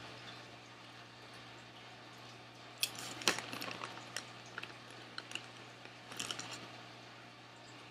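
Quiet scattered crinkles and crunches of eating Smartfood popcorn from its foil snack bag, with the loudest cluster about three seconds in and a few more near the end.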